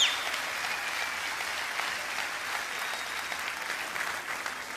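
Large audience applauding, the applause dying down near the end.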